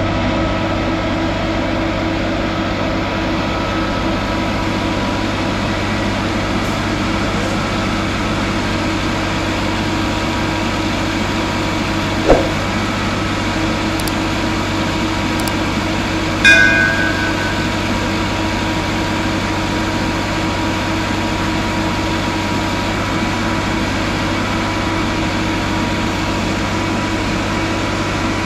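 Diesel engine of a Plasser PBR 400 R ballast regulator running steadily at idle, a low hum with a steady whine over it. A sharp knock about twelve seconds in, then a louder ringing metal clank a few seconds later.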